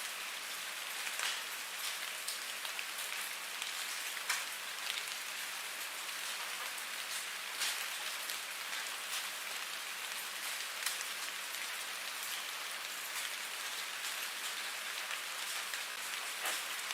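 Steady rain falling, a continuous hiss with individual drops striking close by every second or so.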